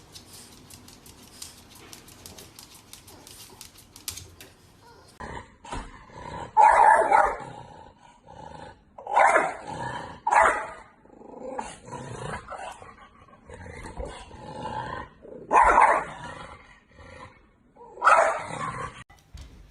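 A dog barking and growling in a few loud outbursts a couple of seconds apart, after a quieter start.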